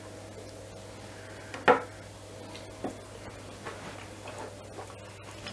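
Quiet room tone with a low steady hum, broken by one sharp click about a second and a half in and a couple of fainter ticks after it.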